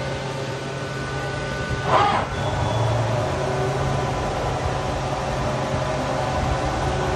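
Mazak MTV-515/40N vertical machining center running with its through-spindle coolant on: a steady hum with several faint steady whine tones. A brief rushing swell comes about two seconds in.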